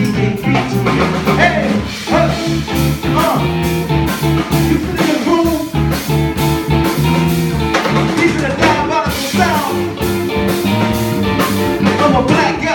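Live band playing: guitar over bass and drums, the higher notes bending up and down.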